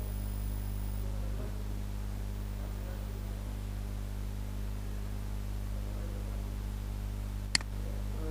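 Steady low electrical hum with a faint hiss, and one sharp mouse click about seven and a half seconds in.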